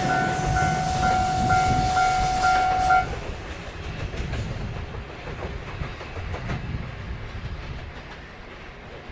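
Railway level-crossing alarm ringing in a quick repeating pattern and stopping abruptly about three seconds in, while a train runs past, its wheels clacking over rail joints as it fades into the distance.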